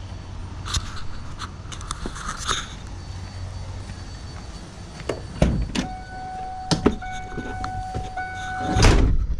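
Footsteps and a few knocks as a van's driver door is opened, then a steady electronic warning chime from the van for a few seconds, cut off by a heavy thump near the end as the door is pulled shut.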